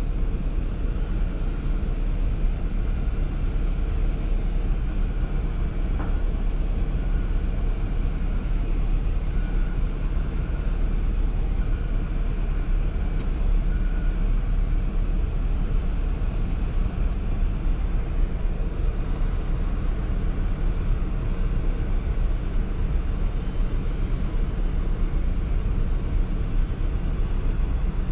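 Steady low rumble inside the cabin of a stationary Ford SUV with its engine idling.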